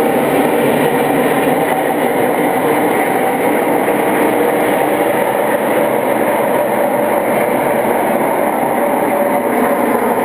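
Steady, loud vehicle noise that runs on without a break or a rise and fall.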